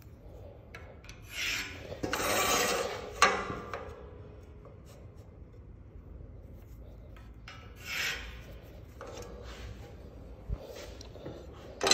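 Two scratchy strokes of a marker drawn across steel stock to mark a layout line: a longer one of about two seconds ending in a sharp click, then a shorter one of about a second.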